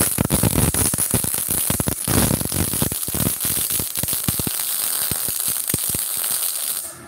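MIG welding arc from a MultiPro MIG/MMA/TIG 160 multi-process welder, crackling densely and steadily as the wire feeds, then cutting off abruptly near the end.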